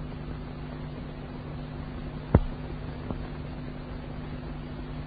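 Steady hiss and low hum of an old archival recording between verses of a Quran recitation, with one sharp click about two seconds in and a fainter click just under a second later.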